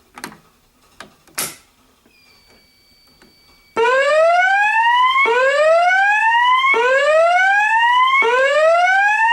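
A voice-evacuation fire alarm speaker sounding the slow whoop evacuation signal: a loud tone that rises in pitch over about a second and a half and then starts again low, four times, beginning about four seconds in. Before it come a few clicks and a steady high beep lasting about a second and a half.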